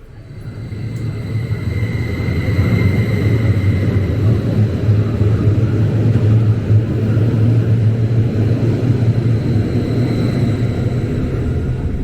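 Steady low rumble of a vehicle running, building up over the first two seconds and then holding, with a faint high whine over it.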